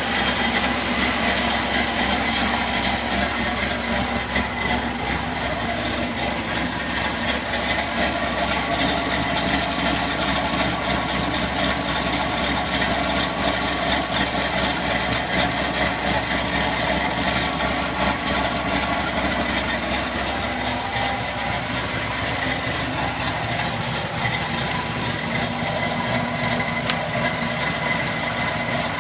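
Dodge Caravan engine idling steadily.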